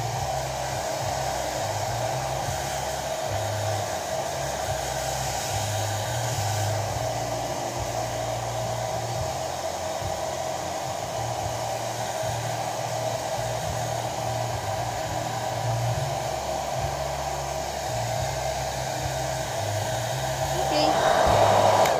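Braun hand-held hair dryer running steadily as it blows a long-haired cat's fur dry, growing louder near the end and then cutting off.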